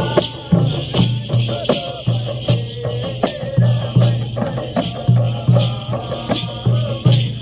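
Live Nepali folk music for a Kauraha dance: drum beats and clashing hand cymbals keep a steady, repeating rhythm.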